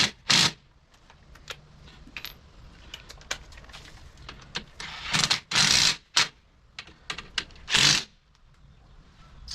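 Scattered metallic clicks and clinks of tools and seat hardware being handled, with a few short hissy bursts in between.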